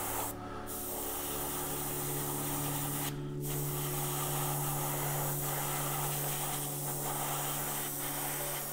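Airbrush spraying paint with a steady hiss that breaks off briefly twice, over a steady low hum.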